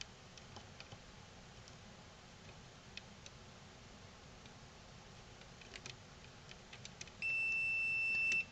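Multimeter continuity beep: a steady, high single-pitched beep starts about seven seconds in and holds for about a second, the sign that the probed point connects to the connector pin. Before it, faint scattered ticks of the probe tips on the coated circuit board.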